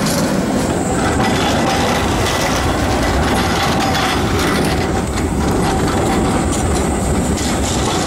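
Trams passing close by, Tatra T3s and a modern low-floor tram: a steady rumble of steel wheels on street rail, with rapid clicking over the rail joints and a thin high wheel squeal.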